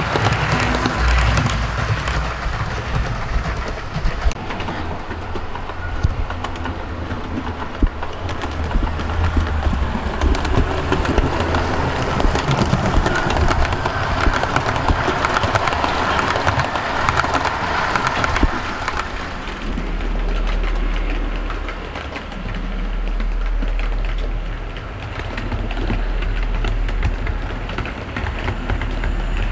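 Model railway train, the Hogwarts Castle locomotive hauling maroon coaches, running along the track with its wheels clattering on the rails. In the later part it swells and fades as the train passes, with a low rumble underneath.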